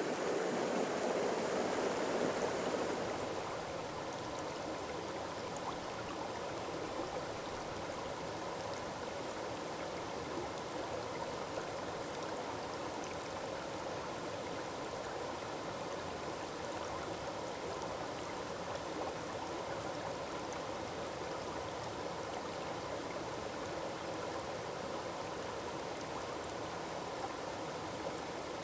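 Forest waterfall rushing steadily, a continuous splash and hiss of falling water. About three seconds in it drops noticeably quieter, then holds even.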